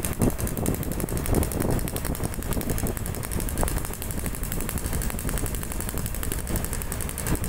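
Suzuki Satria single-cylinder two-stroke motorcycle with a hollowed-out (bobok) roadrace exhaust, riding along at fairly steady throttle: a loud, rapid, rattling string of exhaust pulses.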